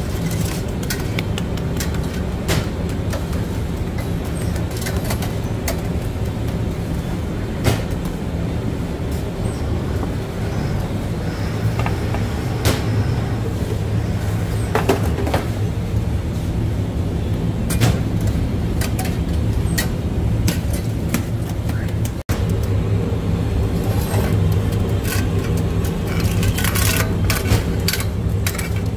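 Steady low drone of bakery machinery, overlaid with scattered sharp knocks and clatters.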